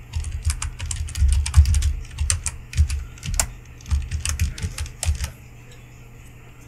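Typing on a computer keyboard: a quick, uneven run of key clicks that stops about five seconds in.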